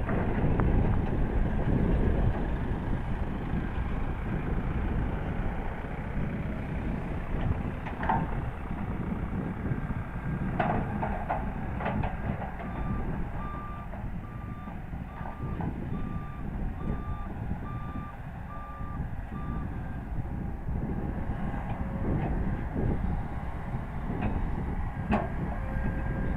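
Heavy diesel machinery rumbling steadily while a reversing alarm beeps about once a second for some seven seconds midway, with a few knocks.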